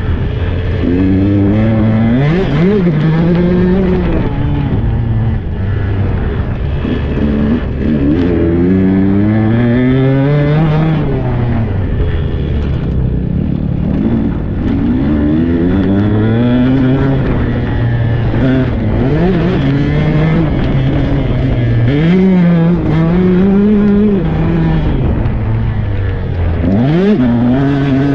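Husqvarna 125 cc dirt bike engine being ridden hard, its pitch climbing and dropping again and again every couple of seconds as it revs up and shifts, heard close up from a camera on the bike.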